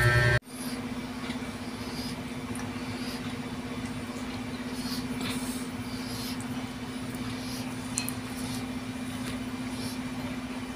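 Steady low hum with a faint wash of background noise, after an abrupt cut about half a second in, and a single faint click about eight seconds in.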